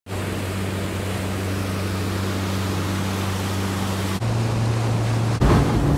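60 hp outboard motor pushing a small aluminium boat at steady speed, a level drone under the rush of wind and water. The engine note steps up slightly about four seconds in, and the sound turns rougher and louder near the end.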